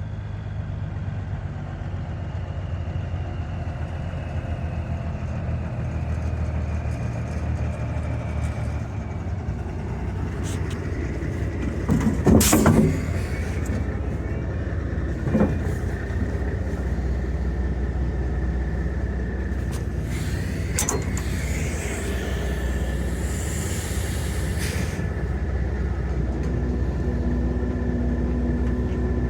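Vehicle engine running steadily, with a brief clatter about twelve seconds in and a smaller one a few seconds later.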